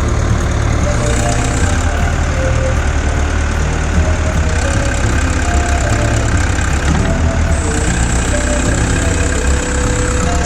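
Backhoe engine idling steadily with a heavy low rumble.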